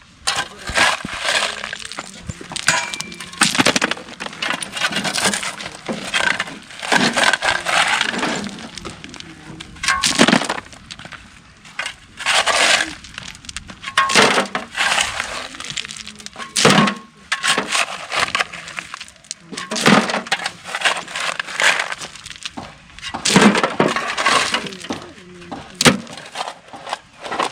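Gravel and stones being shovelled: repeated scraping and clattering strokes every second or two, irregular in spacing.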